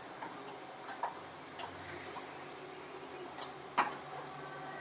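Scattered light clicks and taps of a screwdriver working the screws of a motorcycle's tank shroud, irregular rather than rhythmic, with the sharpest click a little before the end, over a faint steady hum.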